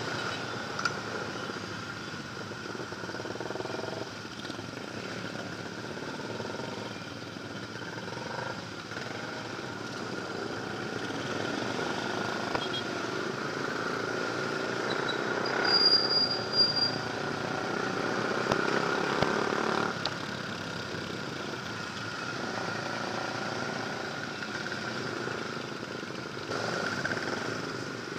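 Yamaha Sniper 135's single-cylinder four-stroke engine running while riding in traffic, its pitch rising and falling with the throttle several times, over steady wind and road noise picked up on the moving bike. A brief shrill high tone sounds about halfway through.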